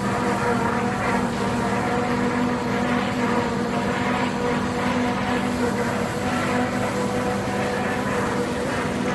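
Steady drone of running industrial machinery, several constant tones over a noisy hum, unchanging throughout.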